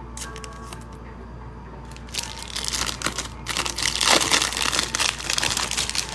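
Trading-card pack wrapper crinkling as it is torn open and handled. It starts about two seconds in and is loudest around the middle.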